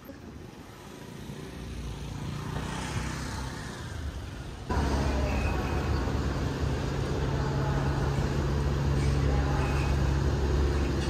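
Street traffic noise for the first few seconds. Then, after a sudden cut, a hotel shuttle boat's engine runs with a steady, loud low drone as the boat moves on the river.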